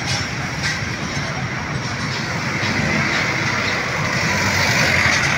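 Steady rumble and rolling noise of an LRT Line 1 train on the elevated viaduct overhead, mixed with street traffic, growing louder toward the end.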